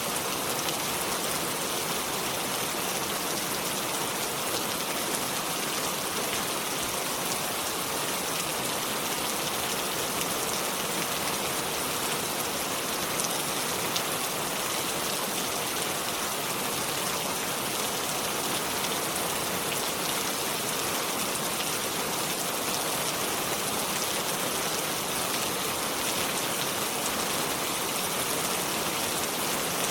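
Steady rain falling, a dense even hiss of drops with faint individual patters, unchanging throughout.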